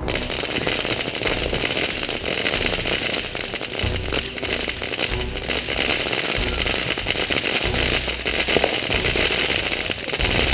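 A lit firework giving off a steady, dense crackle and hiss of sparks, with intermittent low rumbles underneath.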